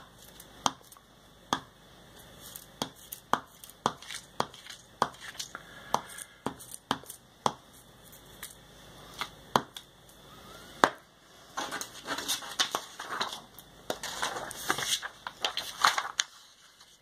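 Glue stick being dabbed over the back of a thin paper cutting, making a string of separate sharp taps about once or twice a second. About halfway through the taps give way to a denser patch of paper crinkling and rustling as the glued cut-out is handled and picked up; this stops shortly before the end.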